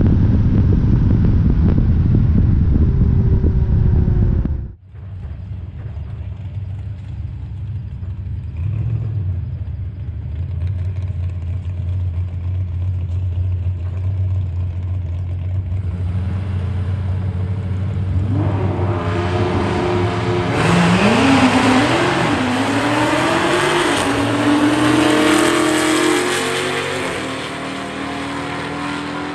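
A car at speed on a highway, its engine and road noise loud and low. After a sudden cut, two drag cars idle at the line, then launch and accelerate hard down the strip; their engine pitch climbs and drops back at each gear change before fading into the distance. The cars are a big-turbo Nissan GT-R and a Dodge Hellcat.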